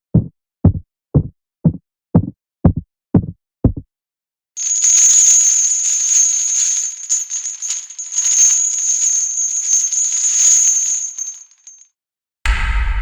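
Horror sound effects in sequence: a run of eight sharp knocks, about two a second. Then a rattling hiss with a steady high whine over it for about seven seconds. Near the end comes a deep, booming hit that rings on.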